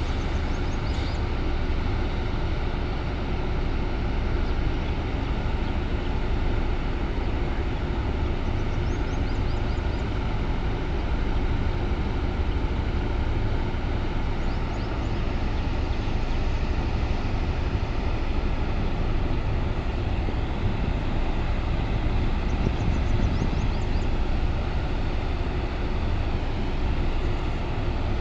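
Workover drilling rig's engine and machinery running steadily: a continuous heavy drone at an even level.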